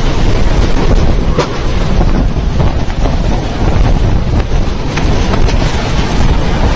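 Storm wind and driving rain blowing hard, buffeting the phone's microphone, with a few sharp knocks.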